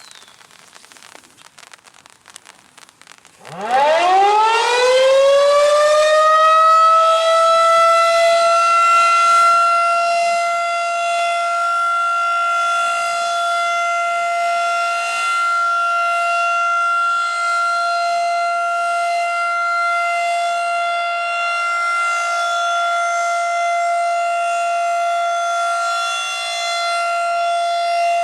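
Outdoor tornado warning siren starting up about three and a half seconds in. It winds up from a low pitch, rising quickly and levelling off into a loud, steady tone that holds without wavering.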